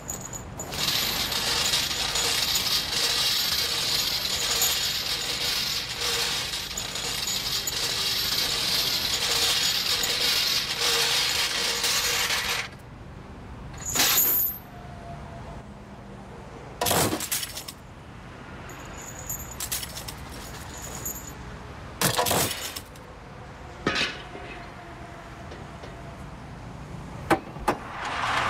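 Angle grinder cutting into a steel wheel clamp with a loud, steady grinding hiss, which cuts off suddenly about twelve seconds in. Scattered metal clanks and chain rattles follow as the clamp is handled.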